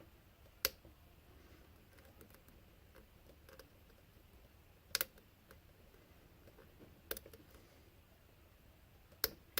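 Sharp little clicks from an American Lock 5200 padlock being picked with a short hook and tension wrench: four louder clicks a couple of seconds apart with fainter ticks between, the sound of pin stacks setting at the shear line.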